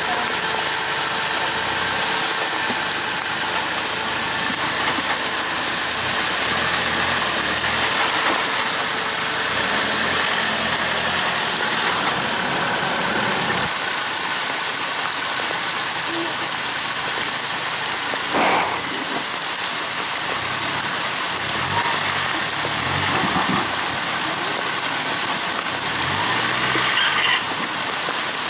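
Land Rover Defender's engine running at low revs as it crawls over rocks in a flowing creek bed, over a steady hiss of running water and rain.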